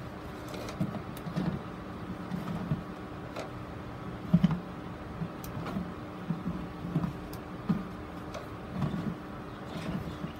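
Irregular light knocks and taps of a plastic grid mounting board being turned and shifted on a plastic tub as a staghorn fern is mounted on it. The loudest knock comes about four seconds in, over a steady low hum.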